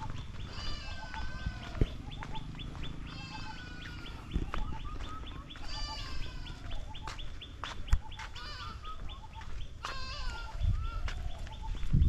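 Farm animals bleating and birds chirping, the calls coming back every couple of seconds over a low rumble on the microphone.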